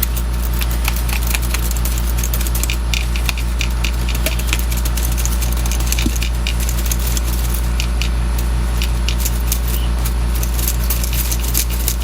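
1938 Corona Standard typewriter's keys and typebars being worked over and over, a quick irregular clicking and clattering, to work isopropyl alcohol into the segment and dissolve old grease. An electric fan runs with a steady hum underneath.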